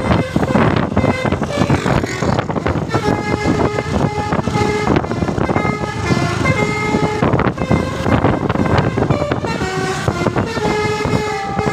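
Basuri 'telolet' multi-tone bus horn playing a melody of short held notes, over steady vehicle noise.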